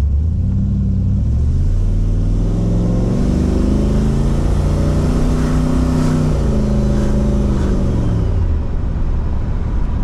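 Boosted 408 LS V8 in a Ford Thunderbird accelerating under throttle, heard from inside the cabin. Its pitch climbs in steps for about six seconds, then drops back as the throttle eases off.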